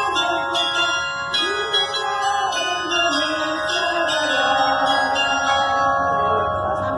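Tower bells rung in change ringing: a steady, even run of strikes about two a second, each bell ringing on over the next so the notes overlap.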